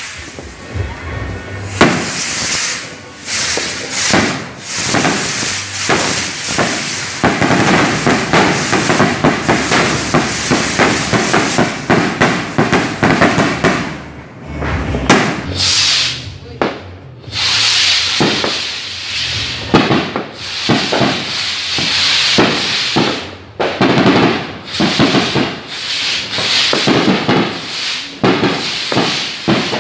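A barrage of kwitis, small Filipino stick skyrockets, firing in rapid succession: a dense, continuous run of pops and cracks, with hissing whooshes of rockets launching from about halfway through.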